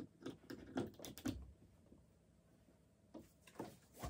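Irregular light knocks and clicks of small objects being handled close by. They come in a quick cluster over the first second and a half, then a few more near the end.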